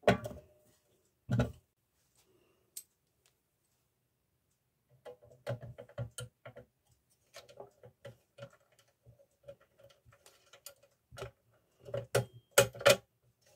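Metal parts of a vintage gumball machine knocking and clicking as the dispensing wheel and coin mechanism are fitted into its housing: two sharp knocks near the start, then runs of small clicks and rattles, loudest just before the end.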